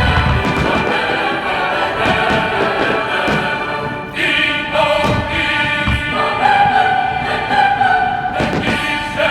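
Choral and orchestral music with a few low thuds mixed in.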